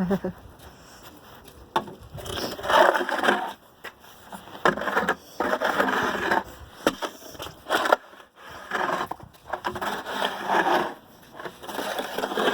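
Snow shovel scraping and pushing snow in a series of strokes, each about a second long with short pauses between.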